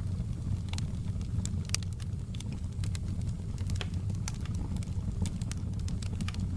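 Wood fire crackling in a fireplace: frequent irregular sharp pops and snaps over a steady low rumble of the burning fire.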